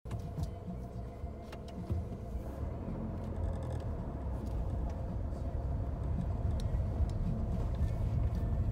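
Jeep Renegade driving on a gravel track, heard from inside the cabin: a steady low engine and road rumble, with a few sharp clicks scattered through it.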